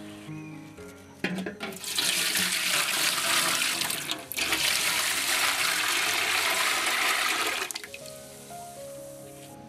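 Liquid poured in a steady stream into an aluminium cooking pot already holding a milky liquid, splashing as it runs. It starts about a second in, breaks off briefly halfway and stops near the end.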